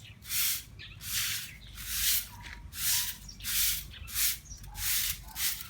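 Broom sweeping a hard surface: a regular run of brushy, hissing strokes, about eight of them, one every 0.7 seconds or so.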